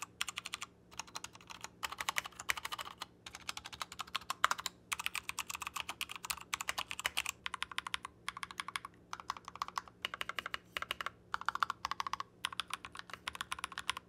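Typing on a Royal Kludge RK61 60% mechanical keyboard, a stock board first and then a modded build partway through. The keystrokes come as fast clicking runs broken by short pauses.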